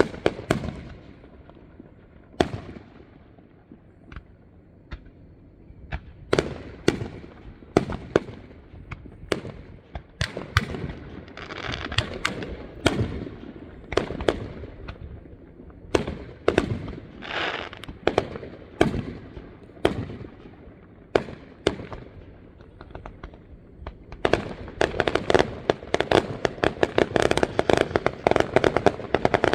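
Aerial fireworks display: a run of separate shell bursts, some with a rolling rumble after them, coming thicker as it goes on. From about 24 s in it turns into a dense, rapid barrage of bangs and crackling.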